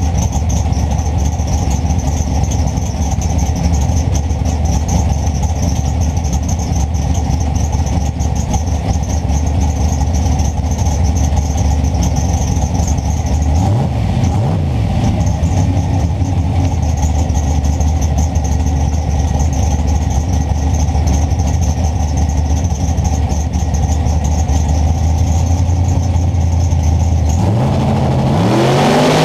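Big-block Chevrolet race engine running at a steady, loud idle. Near the end its revs start to climb.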